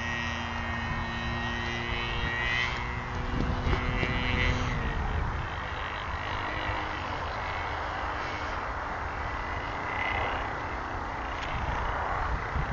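MVVS 26cc petrol engine of a radio-controlled P-47D Thunderbolt model in flight, a steady distant drone whose lower tones fade about five seconds in. Wind rumbles on the microphone.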